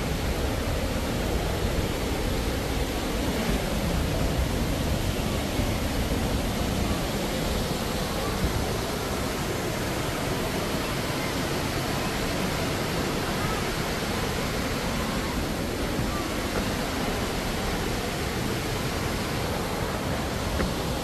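Steady rushing noise of a waterfall, even and unbroken throughout.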